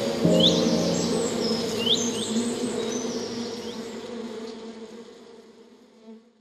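Honeybees buzzing steadily in a dense hum, with a few short rising bird chirps over it. The sound fades out over the last few seconds.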